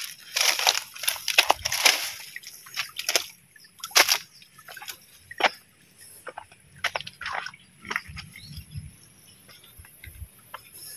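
Irregular rustles and crunches of someone stepping through dry grass and fallen palm fronds at the edge of a shallow stream, with some light sloshing of water.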